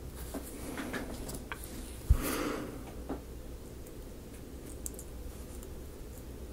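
Quiet close handling of tiny paper craft parts with tweezers: a few faint clicks, and one low thump about two seconds in followed by a brief rustle.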